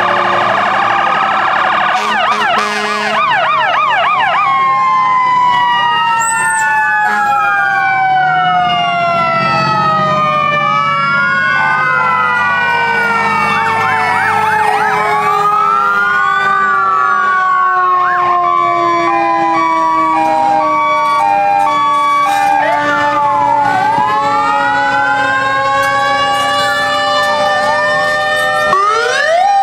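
Several emergency-vehicle sirens from fire trucks and an ambulance sounding at once: overlapping wails rising and falling, bursts of fast yelp, and a long tone falling slowly in pitch. A two-tone hi-lo pattern sounds in the middle, and a siren sweeps sharply up near the end.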